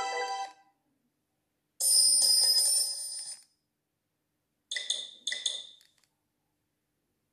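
Nokia 6300i phone loudspeaker playing short ringtone clips one after another with silent gaps: one cuts off just after the start, another rings for under two seconds about two seconds in, then two short tones in quick succession around five seconds in.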